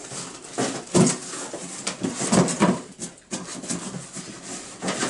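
Welding cables and an electrode holder pulled out of a cardboard box: irregular rustling, scraping and knocking of cardboard, packaging and cable being handled, in several separate bursts.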